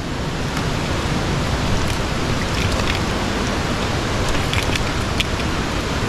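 Mountain stream rushing over rocks, a steady hiss of flowing water, with a few faint clicks in the middle.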